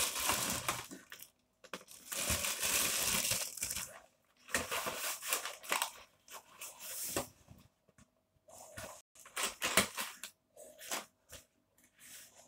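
A clear plastic packaging bag crinkling and a cardboard parcel box being handled, in irregular rustling bursts. The longest, loudest stretch comes about two to four seconds in, with shorter bursts near the end.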